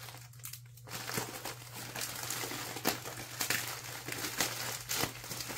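Soft rustling and crinkling of packaging as a parcel is opened by hand, with a few light clicks and knocks scattered through.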